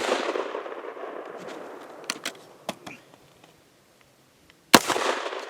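AR-15 rifle firing .223 rounds, one shot at a time. The echo of a shot fired just before fades over the first second and a half, a few faint clicks follow, and a second shot goes off near the end with its echo rolling on.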